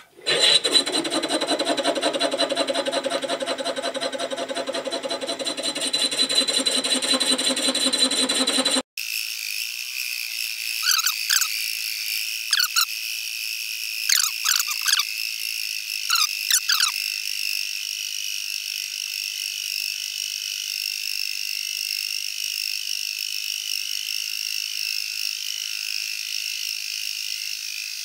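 Knee mill running a boring bar through the cement mixer yoke's journal, a loud steady machining sound with a pitched whine. About nine seconds in, the sound changes abruptly to a thin, high hiss with a few sharp clicks.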